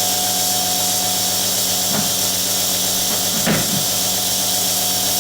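A small motor-driven machine running steadily: a constant hum with a hiss over it.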